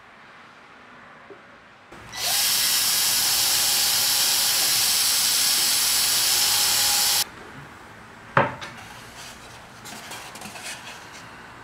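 A woodworking power tool starts about two seconds in, runs steadily for about five seconds and cuts off suddenly. A single sharp knock follows, then light clicks and rubbing of wood.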